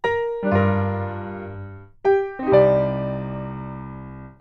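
Short intro jingle of keyboard chords, with a piano sound, struck four or so times; each chord starts suddenly and rings out, fading until the next.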